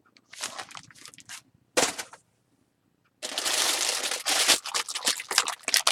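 Food packaging rustling and crinkling as it is handled: a few short rustles, then continuous, louder crinkling from about three seconds in.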